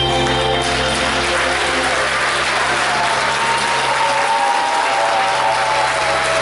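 Audience applauding, breaking in as the backing music ends about half a second in.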